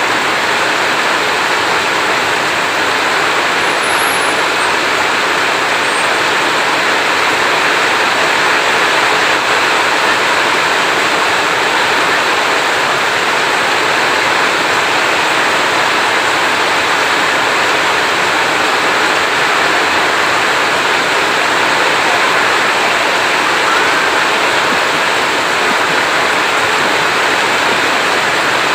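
Heavy rain falling steadily, a dense, even hiss with no thunder claps.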